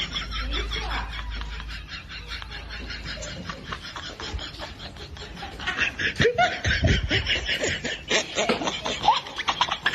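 A person laughing and snickering in rapid, breathy bursts, with a few short vocal glides near the end.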